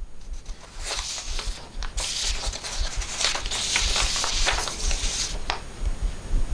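Soft rustling and crackling with many small clicks, stopping about five seconds in.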